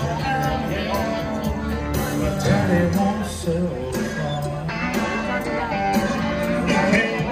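Country-rock song with singing and guitar.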